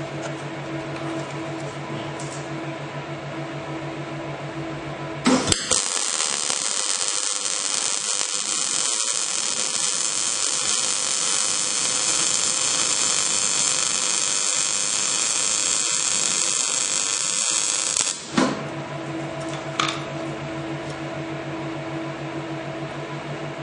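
MIG welding: a steady hum from the welder, changing about five seconds in to a louder, bright, steady hiss of a gas-shielded (argon and CO2) MIG arc. The hiss cuts off about eighteen seconds in and the hum returns.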